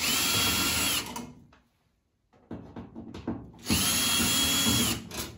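Cordless drill driver backing Phillips screws out of a washing machine's sheet-metal rear panel, in two runs of about a second each with a steady motor whine. The first run is at the start and the second a little past halfway, with a short pause and a few clicks between.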